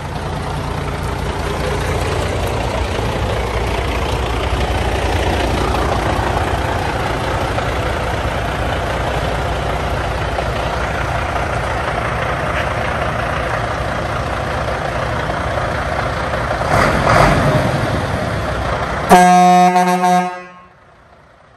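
A Scania 94D 260 lorry's diesel engine idling steadily, with a brief louder rush about 17 seconds in. Near the end the truck's horn sounds one long blast of about a second and a half, and then the sound cuts off abruptly.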